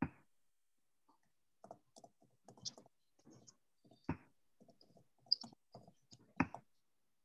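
Typing on a computer keyboard: faint, irregular key clicks, with a few louder keystrokes at the start, about four seconds in and near the end.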